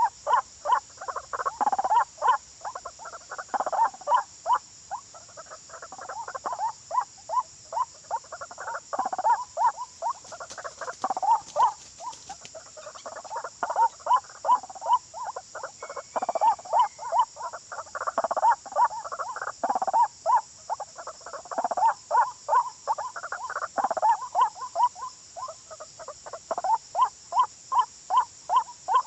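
White-breasted waterhen calls: runs of rapid, repeated short croaking notes, coming again and again, over a steady high drone of insects.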